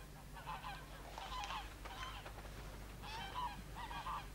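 Geese honking faintly in the background: about five short groups of calls.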